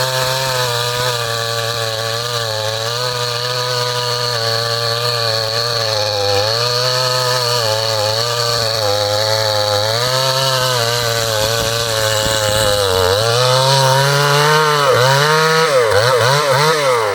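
Ported 52cc two-stroke chainsaw cutting wood under load. The engine pitch sags as the chain bites and recovers. Near the end the revs rise and fall sharply several times. The second-hand chain cuts grabby, which the owner puts down to depth rakers filed too low.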